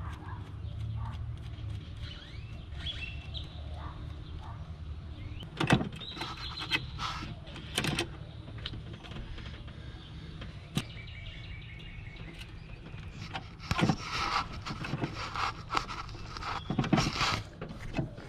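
Sharp metallic clicks and clinks of a wrench and throttle-linkage hardware (heim joint, nuts, threaded rod) being fitted and tightened, a few at a time with some brief ringing, over a steady low hum.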